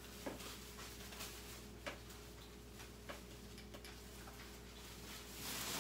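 A few faint, irregularly spaced clicks over a low steady hum, with a short rustle near the end.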